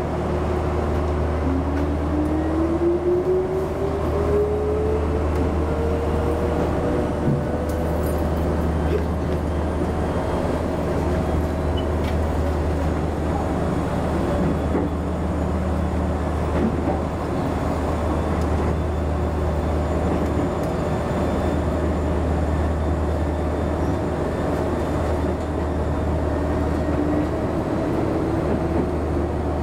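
Chichibu Railway 5000-series electric train heard from the driver's cab as it pulls away: the traction motor whine rises in pitch over the first several seconds and then levels off. Under it runs a steady low rumble of the train rolling on the rails.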